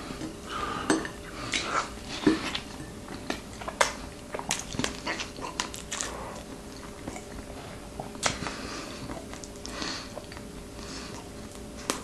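Someone eating: irregular sharp clinks and scrapes of cutlery on a plate, with chewing, over a faint steady hum.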